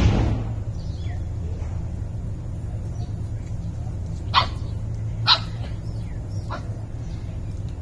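Puppies barking briefly while they play-fight: a few short, high barks, the loudest two about four and five seconds in, over a steady low hum.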